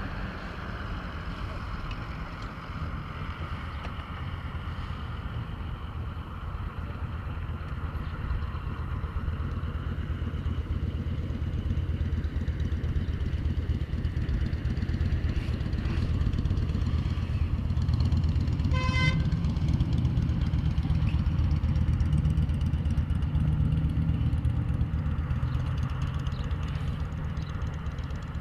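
Road traffic rumbling steadily, a little louder in the second half, with one short car horn toot about two-thirds of the way through.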